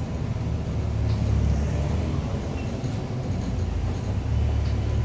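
Bus engine running with a low steady drone under road noise, heard from inside the passenger saloon as the bus moves along the street.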